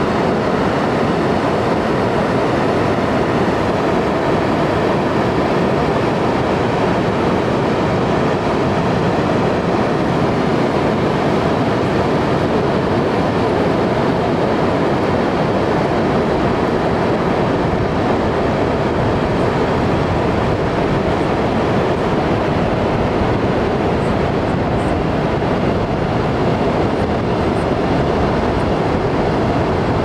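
Pacific Ocean surf breaking on the beach: a steady, even rushing noise with no pauses and no single wave standing out.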